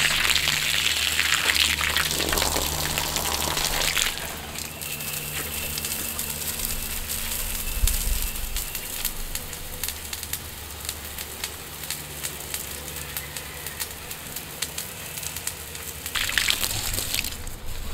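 Water from a garden hose pouring into a galvanized steel stock tank, a steady splashing hiss. It is louder for about the first four seconds, then settles softer, and grows louder again near the end.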